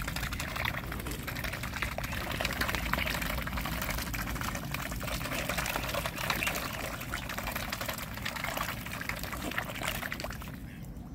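Mute swan cygnets dabbling at the water surface, their bills sifting and slurping water: a continuous wet splashing with many small clicks. It dies down near the end.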